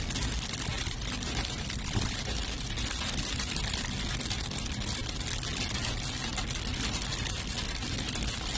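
Heavy rain pelting a moving car, a dense steady patter of many fine drops over the low rumble of the car and its tyres on the wet road.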